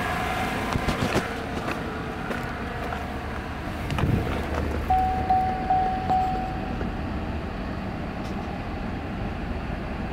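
2014 GMC Sierra's 5.3-litre L83 Vortec V8 idling steadily. A thump comes about four seconds in, followed by a short in-cab warning chime pulsing three times.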